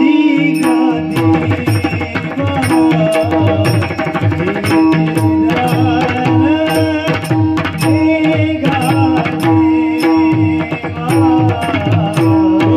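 Instrumental Indian devotional music: tabla playing a steady rhythm under a held drone note, with a wavering melodic line above.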